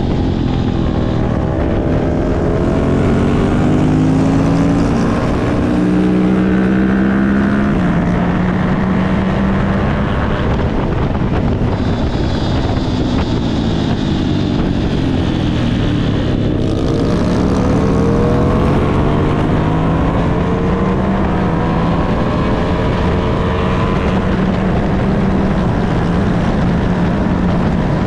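Racing motorcycle engine at high revs, heard from an onboard camera on the bike, its pitch climbing repeatedly as it accelerates and dropping briefly at each change of gear, with a sharper cut about sixteen seconds in before it climbs again.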